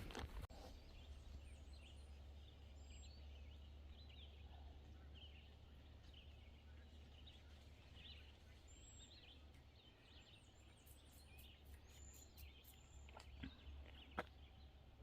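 Faint birdsong: many short, scattered chirps over a low steady rumble, with a couple of sharp clicks near the end.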